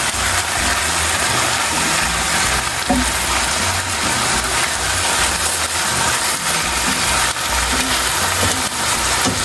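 Chicken thighs and chopped onions sizzling steadily as they fry in olive oil in a frypan, over a low pulsing rumble. A brief light knock about three seconds in.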